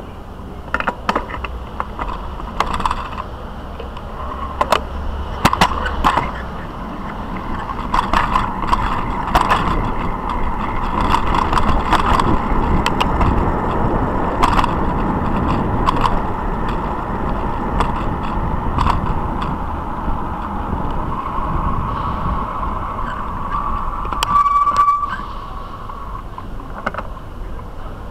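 Bicycle riding over city pavement and road: a steady rumble of tyres and moving air, with frequent clicks and rattling knocks as the bike jolts over the surface. A short squeal rises near the end.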